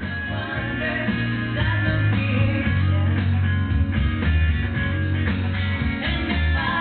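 Rock music with guitar played through a vintage Baldwin three-channel tube amplifier into a loudspeaker, at a medium volume setting. The amplifier is working and passing the music, sounding pretty good.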